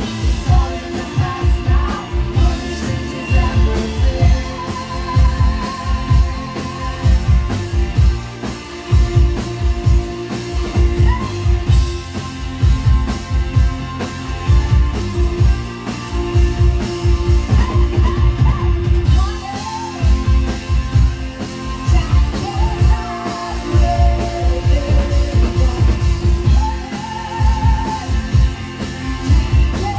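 Live rock band playing loudly, with a steady drum kit beat and guitar, and a voice singing at times.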